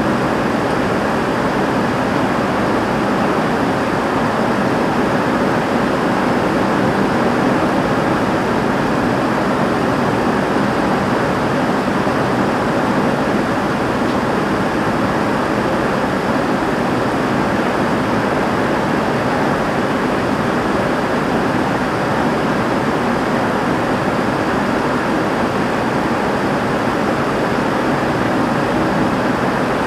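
Heavy rain falling on a roof, with water running off it: a steady, even rush that does not let up.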